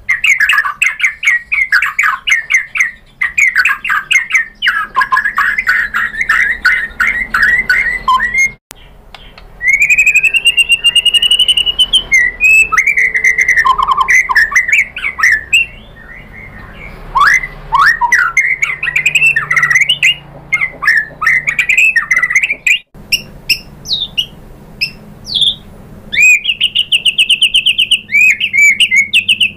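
White-rumped shama (murai batu) singing loudly in a fast, varied song: rapid runs of repeated chattering notes, rising trilled whistles and sweeping calls, with short pauses between phrases.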